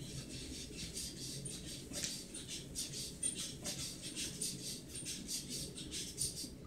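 Bedding rustling and bare feet pattering on a mattress as a child dances on a bed, with brief faint high squeaks.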